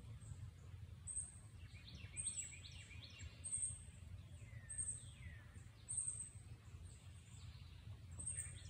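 Faint outdoor ambience of birds chirping and calling, with a short high-pitched note repeating about once a second over a low, steady background rumble.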